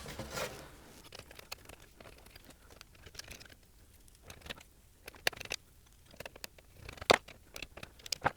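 Scattered light clicks, taps and rustles of parts and screws being handled while a flat-screen TV is put back together, with two sharper knocks about 5 and 7 seconds in.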